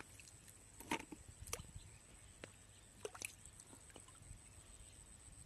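Hands groping through shallow muddy water, with a few short splashes and sloshes, the clearest about a second in and around three seconds.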